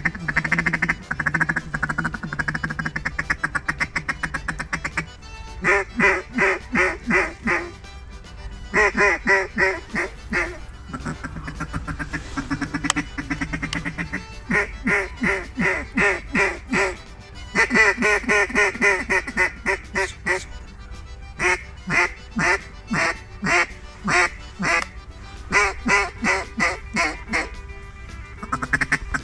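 Runs of duck quacks, about ten quick falling notes each, repeated every few seconds over music.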